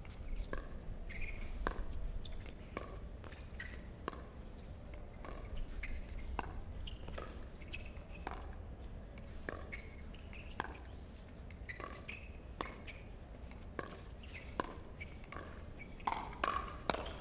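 A long pickleball rally: paddles popping against the hollow plastic ball about once a second, with fainter taps in between, over a steady low rumble.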